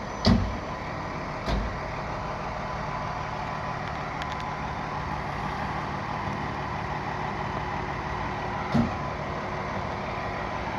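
Fire truck's engine idling with a steady low hum. Three thumps sound over it: the loudest just after the start, one at about a second and a half, and one near the end.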